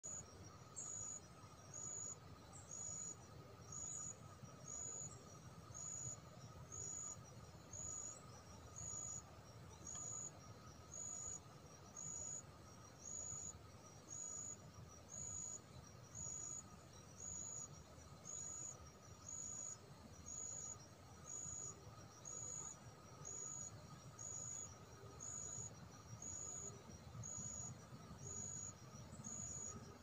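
A cricket-like insect chirping in a steady, high-pitched rhythm, about three chirps every two seconds, over a faint steady drone.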